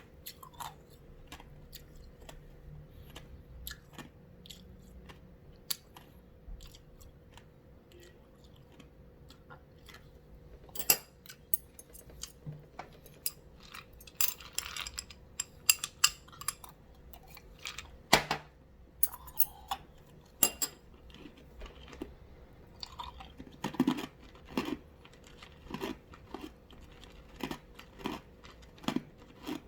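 A person crunching and chewing ice, with irregular sharp cracks and crunches. They are sparse at first and come thicker and louder from about ten seconds in.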